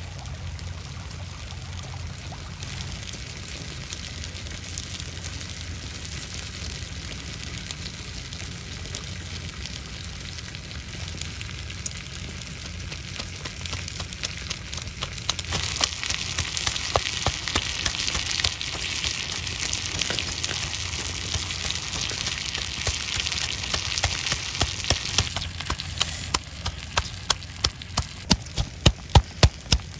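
A steady hiss, then a pestle crushing chilies and garlic in a coconut-shell mortar: scattered knocks that settle into a steady pounding of about two strokes a second near the end.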